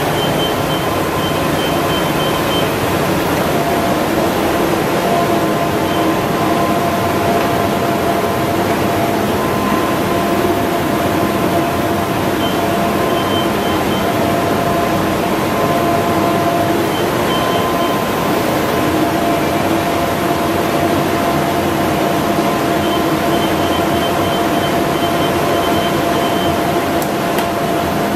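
RYOBI 758P eight-colour long-perfecting UV sheetfed offset press running at production speed: a loud, steady mechanical drone with a few steady whining tones over it.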